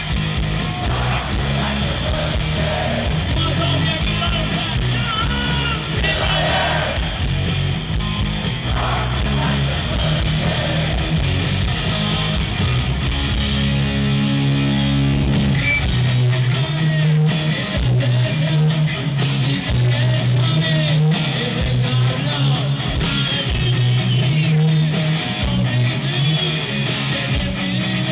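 Live hard-rock band playing loud: distorted electric guitars, bass and drums, recorded from among the arena crowd. The guitars settle into a steady, driving riff about halfway through.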